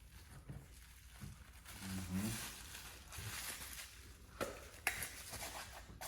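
Light rustling and handling of packaging as a boxed vinyl figure is shown around, with a couple of small sharp clicks in the second half.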